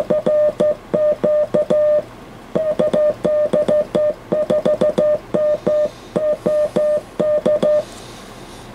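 Morse-code (CW) sidetone from an SBE SB-36 HF transceiver as its transmitter is keyed: a steady mid-pitched beep switched on and off in dots and dashes. It stops near the end.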